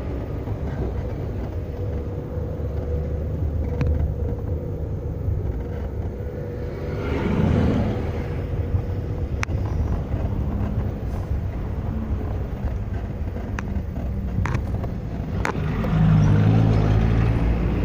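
Car running with a steady low rumble that swells briefly about halfway through and again near the end, with a few sharp clicks in between.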